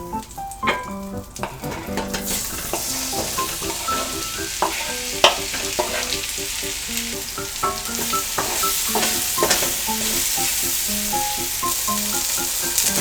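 Food sizzling in a hot frying pan, the hiss starting about two seconds in and growing louder, with a few sharp clicks. Soft background music with short melodic notes plays along.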